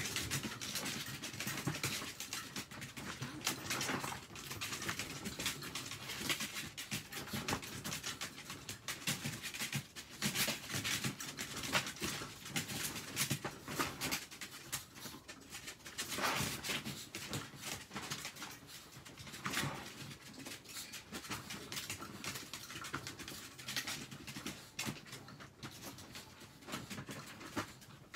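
Chihuahuas moving about in a wire pen: claws pattering and clicking, with some panting, amid a busy run of rustling and small knocks.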